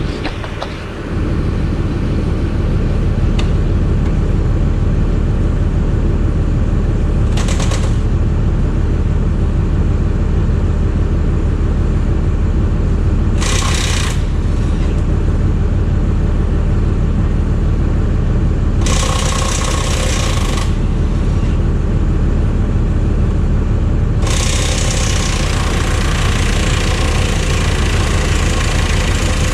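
Heavy diesel engine running steadily at a constant speed. Short bursts of rushing, hissing noise break in several times, with a longer one near the end.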